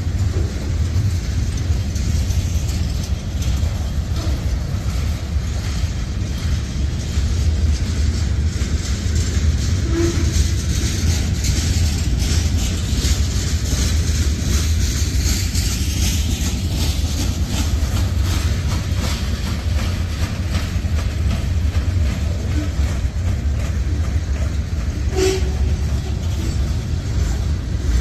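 Freight train cars (covered hoppers and gondolas) rolling past close by: a steady, heavy low rumble of steel wheels on rail with wheel clatter. A few short squeals and a sharp clank come near the end.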